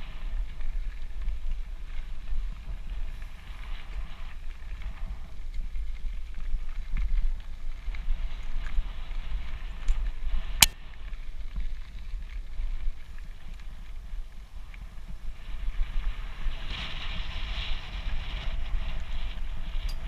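Mountain bike rolling along a dirt singletrack, heard as a steady rumble of wind buffeting the camera microphone with the hiss of tyres on the gravelly trail. One sharp click about ten and a half seconds in.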